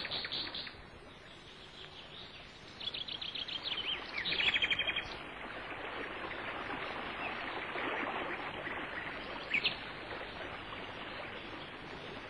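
Small songbirds chirping, with quick trills about three and four seconds in and a short call near ten seconds, over a steady rushing background noise.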